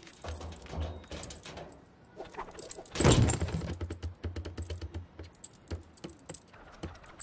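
Cartoon sound effects of a dachshund scrambling onto a plastic dumpster lid and up a wall: soft knocks, a loud thud about three seconds in, then a quick run of clicks and knocks from its claws and body.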